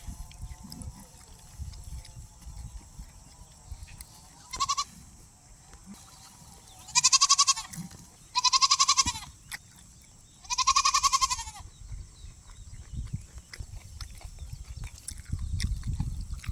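Goat bleating four times: one short call, then three longer quavering ones, each rising and falling in pitch.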